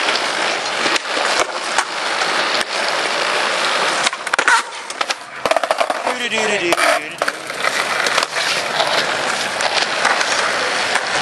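Skateboard wheels rolling on pavement, broken by sharp clacks and knocks as the board is popped and lands.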